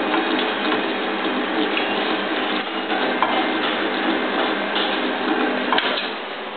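Metal burglar-proof cap sealing machine running, its motor spinning the multi-roller capping head with a steady mechanical running noise and light metallic clinking. There is one sharp click near the end.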